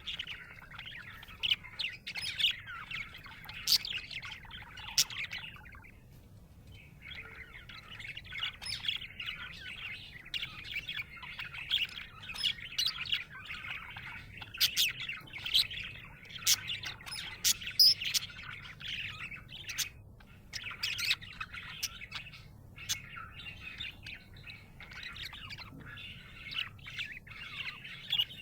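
Budgerigar (budgie) chattering: a continuous jumble of warbles, chirps and sharp clicks, with a short pause about six seconds in.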